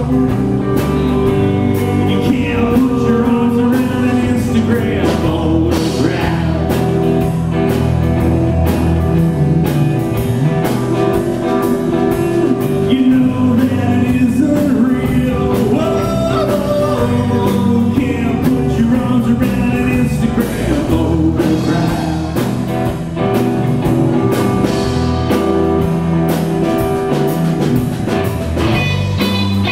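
A live rock trio playing: electric guitar, electric bass and drum kit, with a steady beat.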